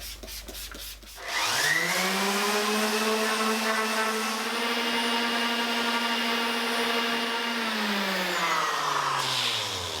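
An electric power tool's motor starts about a second in, winds up quickly to a steady whine, runs evenly, then winds down and stops near the end.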